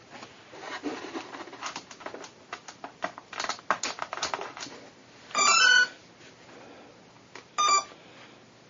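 Wires and a battery connector rustle and click as they are handled and plugged in. About five seconds in, the plane's electronic speed controller sounds a short run of electronic tones through the ducted-fan motor as it powers up. A single short beep follows near the end, as it is powered with the transmitter switched off.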